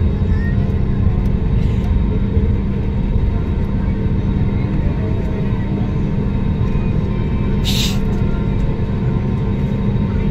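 Jet airliner cabin noise while taxiing: a steady engine rumble with a low hum, heard from inside the cabin. A brief hiss about two-thirds of the way in.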